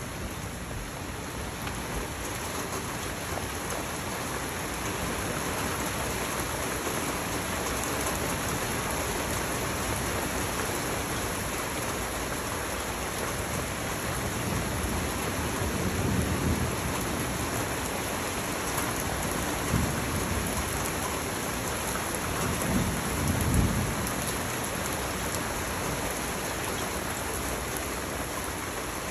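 Steady rain pouring on a backyard patio and lawn during a thunderstorm. Two low rumbles of thunder swell up, one about halfway through and a stronger one about three-quarters of the way through.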